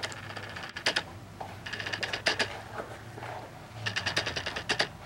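Leather boot upper and lining creaking and squeaking as they are squeezed and pulled by hand. The creaks come in quick rattling runs: one about a second in, a longer one around two seconds, and another near the end.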